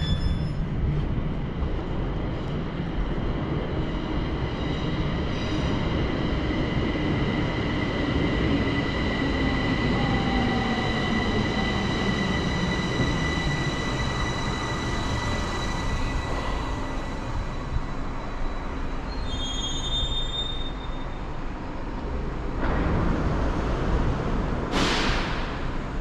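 Bucharest metro train at the platform: a steady rumble with high whining tones, and a lower whine that falls in pitch about halfway through. A brief chime comes about twenty seconds in, then a louder rush of noise in the last few seconds.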